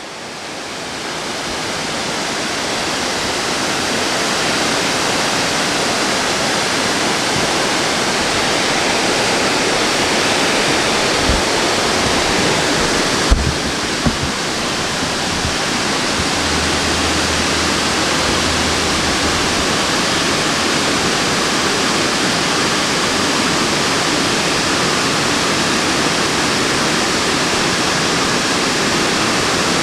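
Large waterfall's steady rush of falling water, building up over the first few seconds and then holding even. A few brief low thumps come about halfway through.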